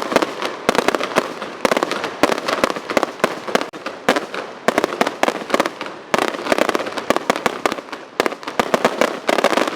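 Fireworks display going off in rapid salvos: dense volleys of sharp bangs and crackling reports, several a second, with brief lulls between volleys.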